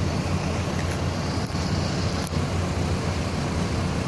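Large bus engine running steadily at low revs, with no horn sounding.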